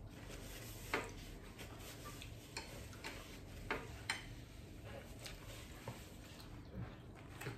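A person eating and handling a paper napkin: a handful of faint, sharp mouth clicks and napkin crinkles, the loudest about a second in and around four seconds in, over a low steady room hum.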